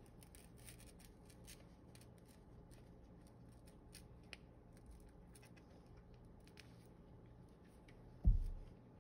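Faint rustling and scattered small ticks of hands handling a crocheted wreath while a needle is worked through the yarn. A single low thump comes near the end.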